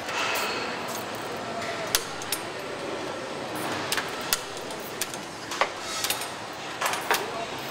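Scattered metallic clinks and knocks of hand tools and parts being worked on a truck chassis, over a steady factory background noise.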